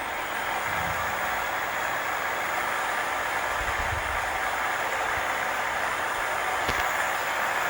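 Small 12 V electric motor spinning a compact axial-flux permanent-magnet generator, a steady whirring hum at constant speed while the generator runs under load. A single sharp click sounds near the end.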